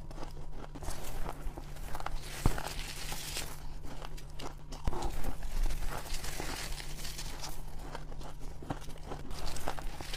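Close-up crunching of shaved ice being bitten and chewed in big mouthfuls, an irregular run of crisp crunches with a few sharper snaps.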